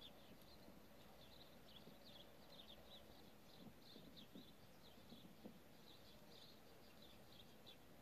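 Faint, quick chirping of small birds going on steadily, with a few soft hoof thuds of a horse moving over arena sand around the middle.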